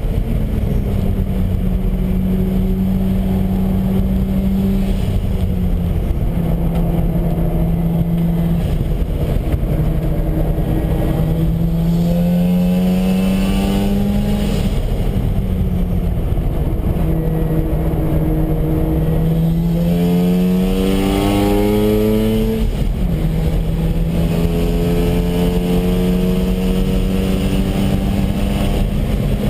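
Mazda RX-7 FD3S's twin-turbo 13B rotary engine running hard on track. Its note holds a steady pitch for stretches, climbs twice and drops sharply about halfway and two-thirds of the way through.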